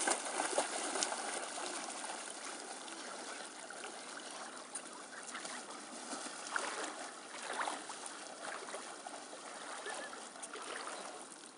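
Shallow water splashing and sloshing as dogs and a person wade through it.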